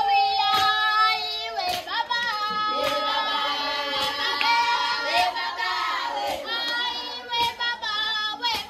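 A group of girls and young women singing together in chorus, with handclaps through the song.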